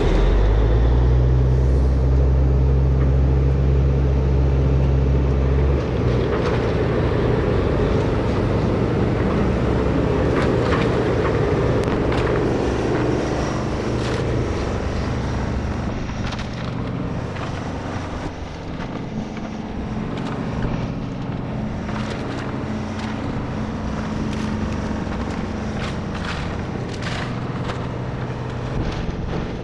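Takeuchi TB2150 excavator's diesel engine running hard as it works a pile of house debris, with scattered knocks and cracks of breaking, shifting wreckage. The engine's deep note drops off about six seconds in, and the machine grows fainter as it moves away.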